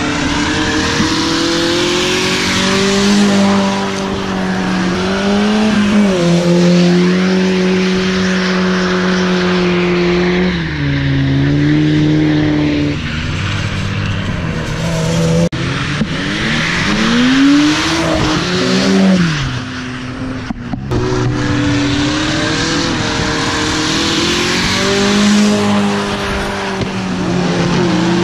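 Drift cars at high revs sliding on wet asphalt. The engine note holds high and dips and climbs as the throttle is worked, with one quick rise and fall about two thirds of the way through, over a continuous hiss of tyres.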